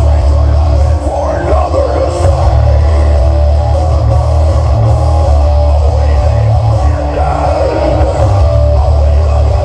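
Loud rock music with guitar and a strong, steady deep bass.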